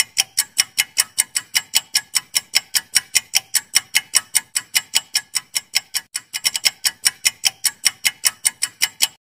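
A clock-like ticking sound effect for a countdown timer: sharp, even ticks about five a second, stopping near the end.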